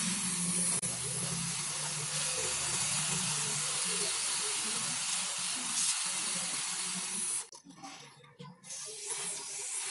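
Aerosol can of Motul chain lube spraying onto a motorcycle drive chain in a long, steady hiss. About seven and a half seconds in it breaks off for a second or so, then starts spraying again.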